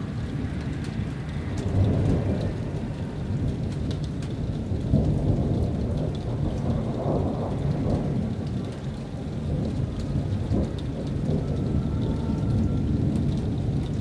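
Thunder rumbling low and long, swelling and easing several times, with rain falling and scattered drops ticking.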